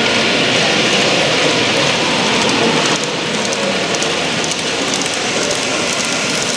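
Model TGV train running along the layout's track: a steady rolling hiss of wheels and motor, a little quieter after about three seconds.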